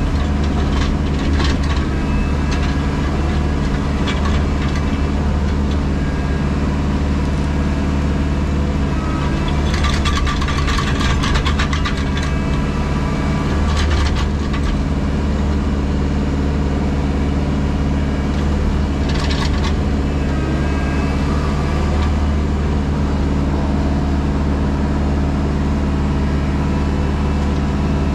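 JCB Pothole Pro's diesel engine running steadily, with brief clusters of clattering knocks about ten, fourteen and nineteen seconds in.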